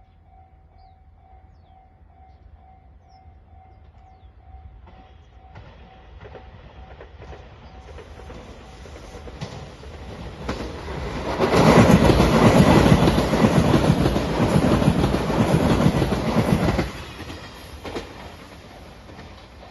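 A train passes over a level crossing. The crossing's warning bell rings at the start, then the train noise builds and passes close and loud for about five seconds, with wheels clacking over rail joints. It drops away abruptly and fades.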